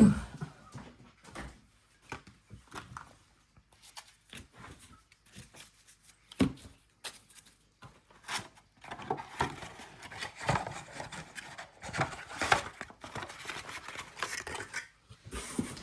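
Trading cards and packs being handled: scattered light clicks and rubs, then a denser stretch of rustling for several seconds past the middle.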